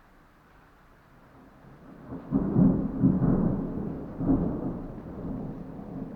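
Thunder: after about two seconds of quiet a low rolling peal breaks out suddenly, swells in several surges, and slowly trails off.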